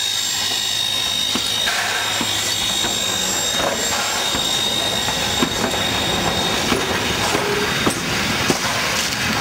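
The 1909 steam locomotive A428 rolling slowly past at close range, with a steady rumble and hiss and sharp clicks and knocks from its wheels on the track, more frequent in the second half.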